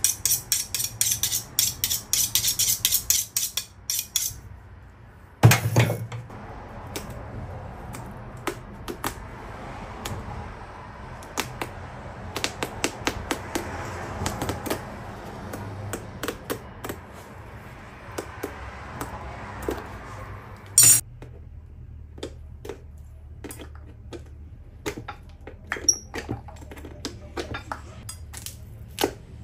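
Hand tools and boot parts clicking and clinking on a shoe-repair bench. A rapid run of sharp clicks comes in the first few seconds, a heavy knock about five seconds in, and a short loud burst of noise about two-thirds of the way through, with scattered light clicks between.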